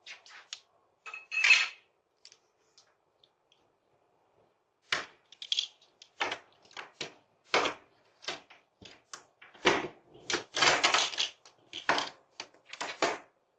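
Front-door lock and handle being rattled and worked, a stranger trying to force the lock: sharp metallic clicks and rattles, a few at first, then after a pause of about three seconds a quick irregular run of them.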